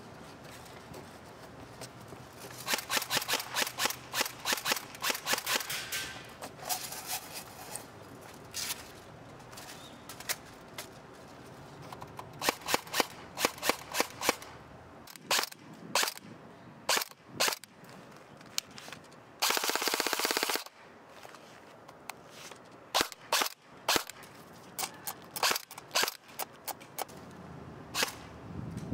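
G&G GR16 electric airsoft rifle firing: strings of quick single shots, with a continuous full-auto burst of about a second around the middle.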